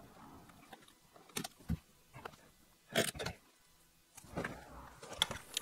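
Hands working the leather padding on a roll cage: a few faint taps and clicks, the loudest about three seconds in, then a soft rustle of the leather near the end.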